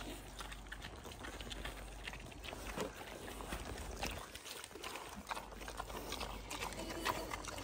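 Several pigs chewing and crunching cabbage leaves, a busy run of small irregular wet crunches and smacks.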